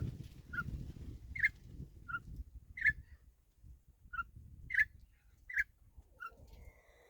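A bird calling in short, separate chirps that alternate between a lower and a higher note, about one or two a second. A low rumble fades out over the first couple of seconds.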